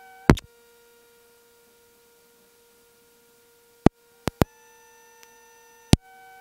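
A steady electronic tone with overtones, broken by five sharp clicks. After some of the clicks the tone fades, then comes back at a different pitch.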